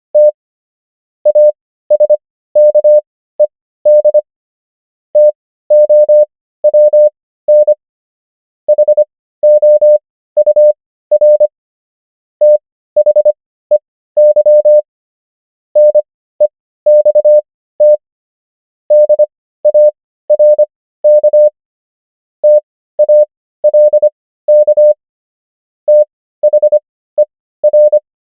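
Morse code practice tone: a single mid-pitched beep keyed on and off in quick dots and dashes, spelling English words at 25 words per minute character speed. The groups are spread out to 15 words per minute (Farnsworth spacing), with short silences between them.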